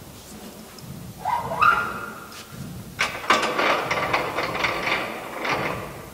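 Metal squealing and scraping from the mechanism of a scale-model energy-absorbing road barrier being worked by hand: one squeal rising in pitch about a second in, then about three seconds of denser squeaking and clicking.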